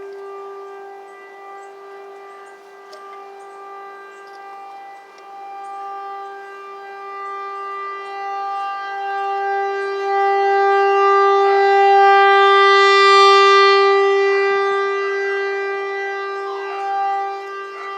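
Outdoor tornado warning siren sounding during a test: one long, loud, steady-pitched wail. It swells to its loudest about two-thirds of the way through, then fades somewhat.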